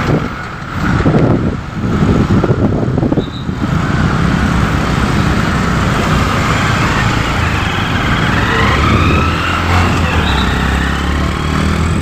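Dense street traffic of cars and motorcycles: engines running close by in an uneven rumble. From about seven seconds in a steadier low engine drone sets in, with a whine rising in pitch.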